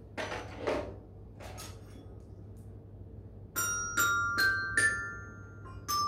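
A glockenspiel's metal bars struck with a mallet: from about halfway in, four ringing notes, each higher than the one before, then a few more notes near the end.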